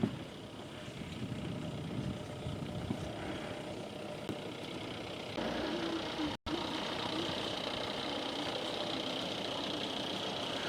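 A vehicle engine idling steadily. A little past halfway the sound cuts briefly and changes abruptly, as at an edit, and a steady high hiss is louder after it.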